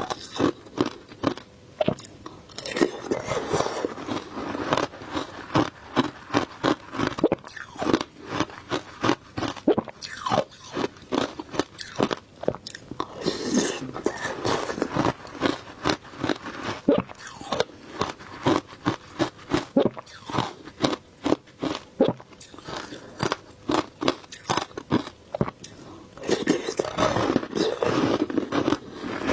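Frozen passion fruit shaved ice being bitten and chewed: rapid sharp crunches, several a second, with thicker stretches of continuous crunching three times.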